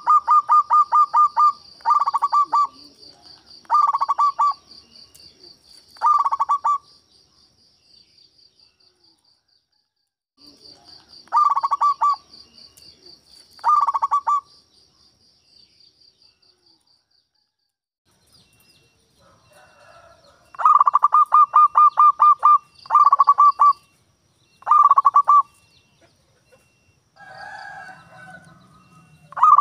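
Zebra dove (perkutut) cooing: phrases of rapid staccato coo notes, some short and some long, repeated about nine times with pauses between. A high, steady trill runs behind the first half.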